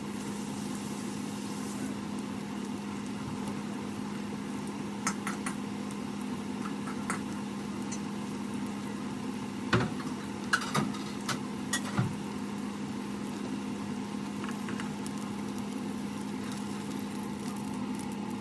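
A steady low hum over a faint hiss, with a few sharp clicks and taps, most of them about ten to twelve seconds in.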